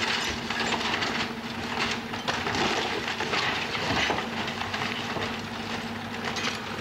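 An engine hums steadily while wood debris cracks and clatters continuously, the sound of a burned cabin being torn down.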